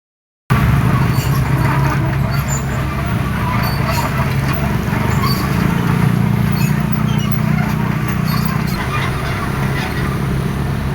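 Excavator's diesel engine running steadily, with scattered light knocks and clatter over it.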